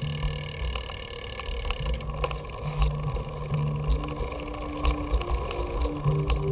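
Bicycle riding on paved paths, picked up by a camera mounted on the bike: an uneven low rumble of wind and road noise with frequent small rattling clicks from the bike.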